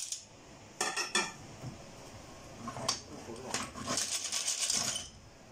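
Cooked clams in their shells clattering against a stainless steel pot as they are tossed in it: a few separate clicks, then a dense rattle about four seconds in that stops abruptly just before the end.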